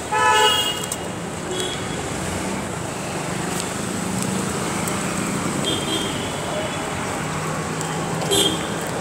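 Steady city road traffic, a mix of engines and tyres. A vehicle horn toots briefly right at the start, and fainter short toots come later.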